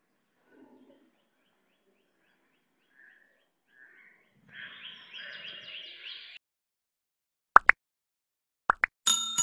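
Birds chirping faintly, then a quicker run of chirps for about two seconds. The end-card subscribe animation follows: two pairs of sharp mouse clicks and a bright notification ding that starts near the end and rings on.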